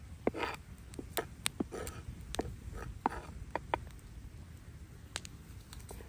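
Large knife chopping red pepper on a round wooden log-slice board: irregular sharp knocks of the blade hitting the wood, about ten of them. A log campfire is burning next to the board, and some of the thinner, sharper clicks may be it crackling.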